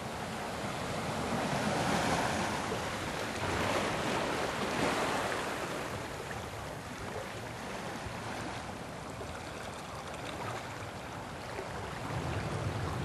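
Steady rushing noise, swelling louder about two and five seconds in, then evening out.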